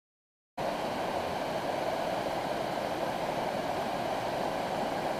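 A shallow, rocky river rushing steadily over stones, starting suddenly about half a second in.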